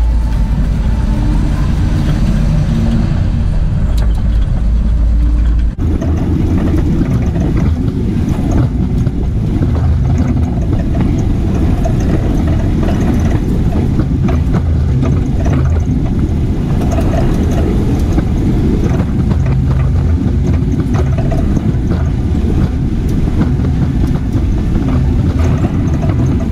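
Graham-Paige 612 vintage car's six-cylinder engine running as the car drives along a gravel road, with a steady heavy rumble of engine and road noise. The sound changes abruptly about six seconds in.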